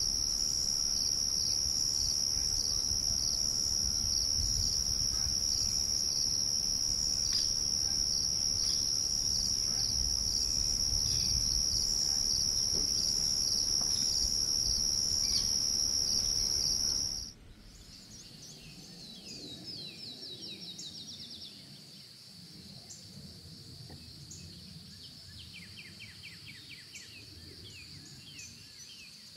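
A steady, high-pitched insect trill over a low rumble; about two-thirds of the way in the sound cuts abruptly to a quieter scene where a fainter insect trill continues and a bird gives a few short, rapid trills.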